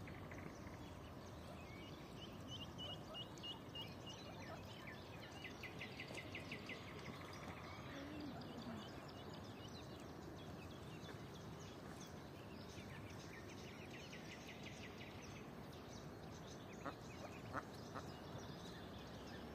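Faint peeping of a brood of ducklings on the water, in several quick runs of short high notes.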